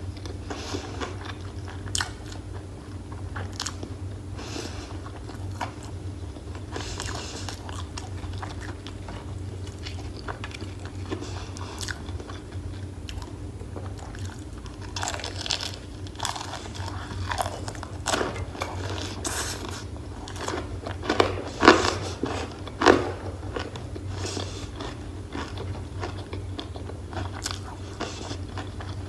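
Close-miked crunchy bites and chewing of crispy breaded fried chicken, a run of short crackling crunches with the loudest ones about three-quarters of the way through, over a low steady hum.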